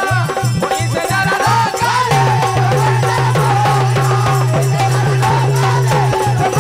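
Live devotional folk music from a bhajan group: a wavering melody over a steady, evenly repeating low drum beat, with rattling percussion.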